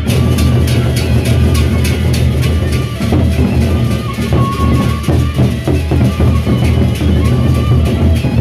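Sasak gendang beleq ensemble playing: large double-headed barrel drums beaten with sticks in a driving rhythm, over a steady deep low drone, with rapid metallic clashes and high held melody notes on top.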